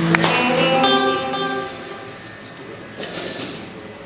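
A live band's instruments sounding a few sustained notes one after another as the applause dies away, then a short high rattle about three seconds in.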